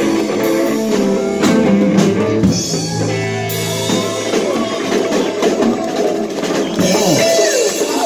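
A live band playing rock: electric guitars and bass over a drum kit, with congas.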